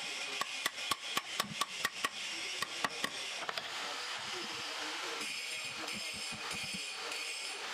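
Light metallic clinks and taps of steel brackets and bolts being handled against a wooden board: about a dozen quick, ringing clicks over the first three seconds, then softer handling noises over a steady hiss.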